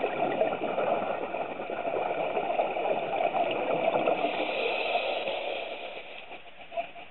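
A scuba diver exhaling through the regulator underwater, a long burbling rush of exhaust bubbles that fades out about six seconds in.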